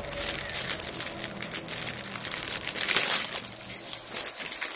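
Clear plastic packaging crinkling as it is handled, in uneven bursts of crackle.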